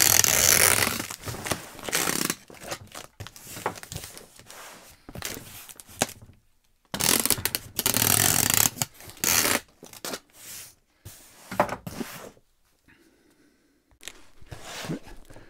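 Packing materials and a cardboard box being handled: two long rustling stretches of about two seconds each, one at the start and one about seven seconds in, with scattered knocks and scrapes between.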